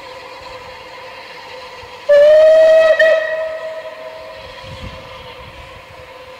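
Steam locomotive whistle blown once, about two seconds in: a loud single-pitched shriek that rises slightly as it opens, catches briefly partway through, and dies away over about two seconds. A steady drone continues underneath.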